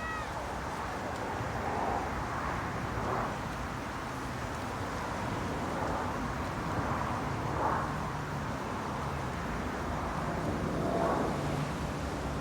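Seaside outdoor ambience: a steady rush of noise that swells gently every couple of seconds, over a low steady hum.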